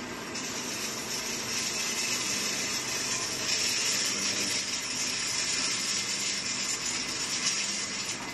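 Grinding mill running, milling peanuts: a steady high hiss over a faint low hum, rising slightly about half a second in.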